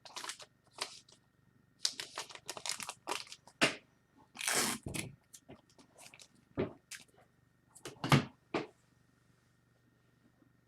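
Trading-card packaging and plastic holders being handled: scattered short crinkles and clicks, with a longer rustle about halfway through.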